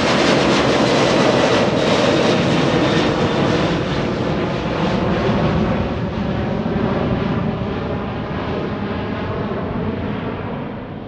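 Airliner's engines loud as it passes close by, then receding: the noise slowly fades and loses its hiss, with a faint whine early on.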